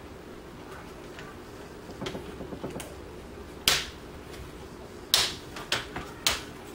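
Plastic screen bezel of a Gateway NV55C laptop being pried off by hand, its clips popping loose: a few soft ticks, then several sharp snaps in the second half.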